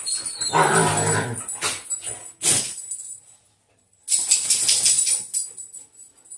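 Dogs vocalizing together in a drawn-out, grumbling howl for about the first second and a half, then a few sharp clicks, a short lull, and a burst of metal collar tags jingling as the dogs shake and move off.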